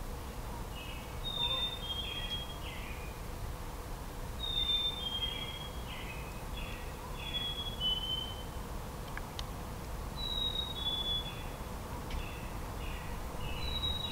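A songbird singing the same short phrase over and over, about every three seconds: two clear whistled notes stepping down in pitch, then a few lower buzzy notes. Under it is a steady low rumble of background noise.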